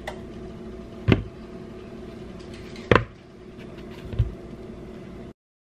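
Soft thuds of peeled, overripe bananas dropping into a mixing bowl, three times, the second the loudest, over a steady background hum.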